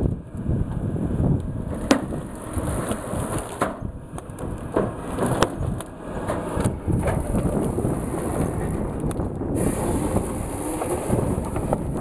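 Large tracked forestry processor running under load, its diesel engine and hydraulics working steadily while the head handles logs, with irregular sharp cracks of wood and brush breaking.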